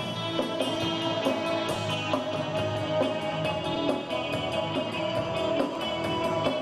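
Post-punk band playing live in an instrumental stretch without vocals: electric guitar over a drum kit keeping a steady beat.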